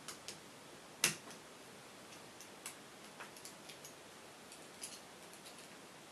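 Scattered small metallic clicks and taps from handling a VITA 5-pin euro cylinder lock while taking it apart, with one sharper click about a second in.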